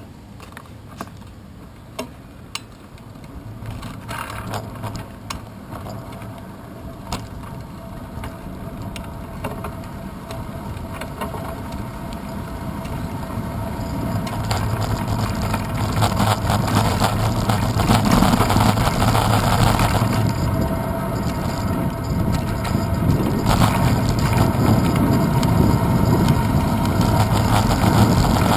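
Riding noise of a bicycle on a city street, picked up by a camera mounted on its handlebars: rumble and wind noise build steadily as the bike gathers speed. There are a few sharp clicks in the first few seconds.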